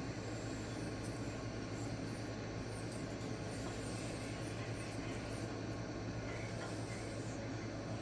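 D2 steel knife edge being stroked freehand across a fine-grit diamond sharpening plate: a continuous scraping hiss, over a steady low hum.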